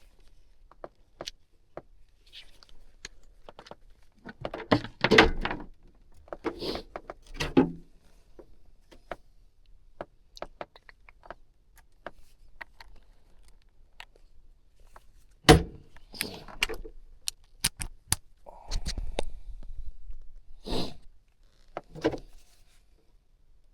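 Hand tools and small metal parts clicking, clinking and knocking as an electrical box cover is handled and fitted back on, with a sharp knock about fifteen seconds in.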